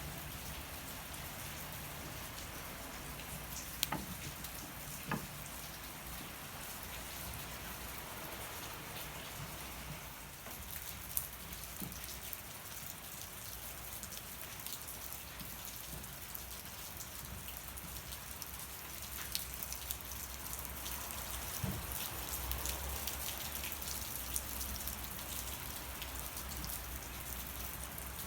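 Steady hiss of falling rain, with a wood campfire crackling under it: a handful of sharp single pops scattered through.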